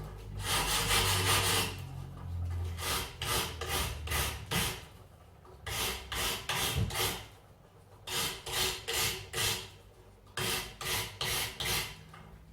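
Hand wire brush scrubbing stripper-softened paint off small metal rim-lock parts: quick scratchy strokes, about three a second, in bursts with short pauses between them.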